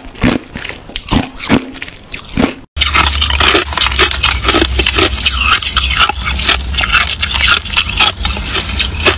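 Hard clear ice cubes crunched between the teeth in a series of sharp bites. After a sudden cut about three seconds in, a dense, continuous scraping and crackling of frosty ice being dug through by fingers in a plastic tub, over a low steady hum.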